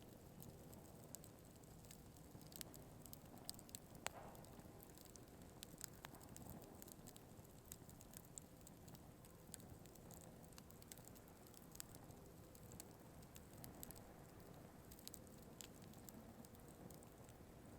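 Burning firewood crackling: scattered sharp pops and ticks at irregular intervals over the low steady hiss of the fire, with a louder pop about four seconds in.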